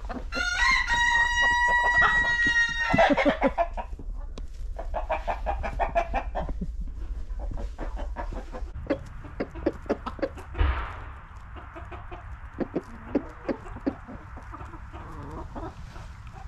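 A rooster crows once, a long held call of about two and a half seconds near the start. Chickens then cluck, among many small taps.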